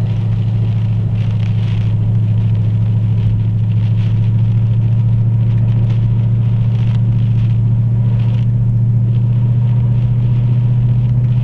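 Car driving with a steady low engine and road drone and rushing tyre noise.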